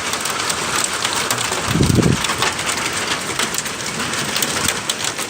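Heavy rain and hail pelting the house in a severe thunderstorm: a dense roar of rain with many sharp hailstone hits. About two seconds in comes a short low rumble.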